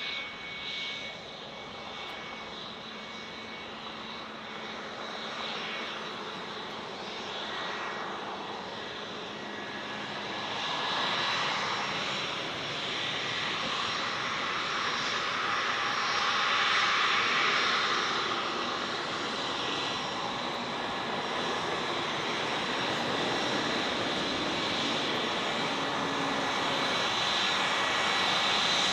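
Jet airliner's engines, a steady high whine over a rushing roar that swells about a third of the way in and stays loud.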